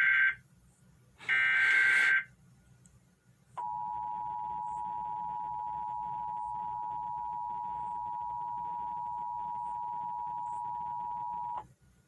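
Emergency Alert System Amber Alert tones: the end of one SAME header data burst and then another, each a harsh digital screech about a second long. About a second and a half later comes the two-tone EAS attention signal (853 and 960 Hz), held steady for about eight seconds before it cuts off sharply. This is the start of another station's relay of the alert.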